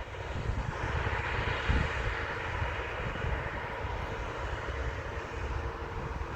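Boeing 737 jet engines running steadily: an even rush of noise with a low rumble and a faint steady whine underneath.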